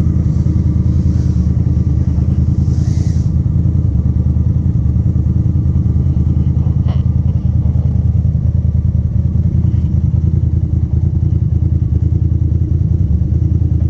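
A side-by-side UTV's engine idling steadily: a low, even rumble with a fast flutter and no revving.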